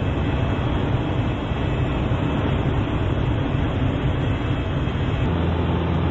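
Piper Super Cub's piston engine and propeller running steadily in cruise flight, with rushing airflow noise. About five seconds in, the low engine note becomes steadier and more even.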